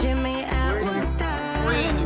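Background music with a steady bass beat and a melody over it.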